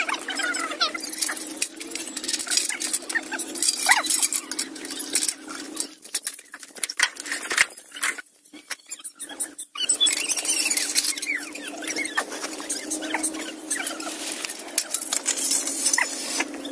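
Squeaking and clinking from a hand-worked tripod well-drilling rig as the rope is hauled over its pulley to lift and drop the drilling tool in the pipe. A steady low hum runs underneath.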